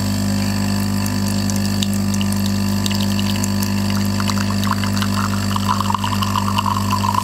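Commercial espresso machine's pump humming steadily as a shot is pulled, with faint ticks and a light trickle of espresso running into a glass.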